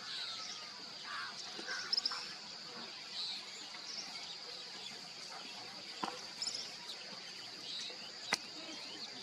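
Forest ambience: a steady high insect drone with scattered short bird chirps and calls, and one sharp click about eight seconds in.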